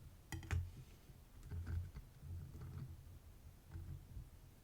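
A few faint, scattered small clicks and taps of a padlock's brass pins and springs and metal tools being handled as the pins are loaded back into the lock.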